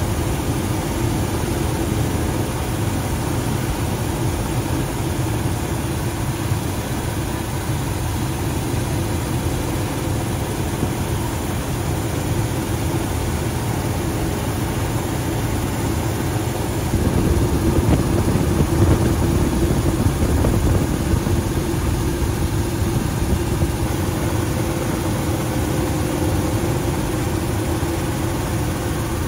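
Steady drone of a helicopter's engines and rotor heard from on board, a little louder for a few seconds past the middle.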